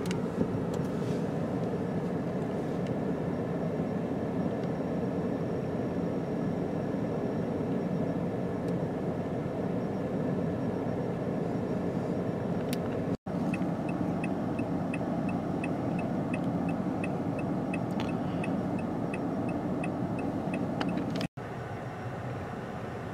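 Steady low rumble of a car's engine and road noise heard inside the closed cabin. For several seconds in the middle a light, regular ticking runs through it, about three times a second, and the sound drops out for an instant twice.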